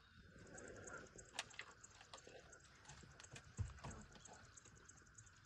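Faint scattered clicks and taps over a near-silent background, with one louder knock about three and a half seconds in.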